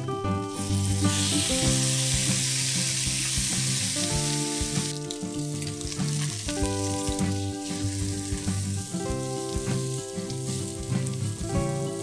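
A large piece of raw pork searing in a hot frying pan, sizzling loudly from about half a second in as it lands in the pan, then fainter after about five seconds.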